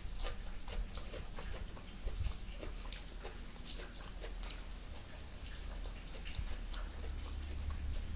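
Close-up eating sounds: a person chewing food, with irregular small wet mouth clicks and smacks.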